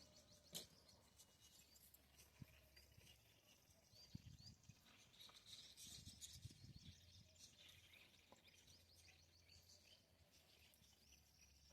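Near silence: faint outdoor ambience with distant birds chirping now and then and a few soft clicks.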